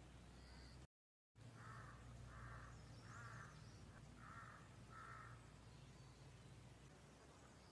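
A bird giving five harsh calls in a row, each about half a second long and roughly a second apart, over faint high chirps of other birds. The audio cuts out to dead silence for about half a second near the start.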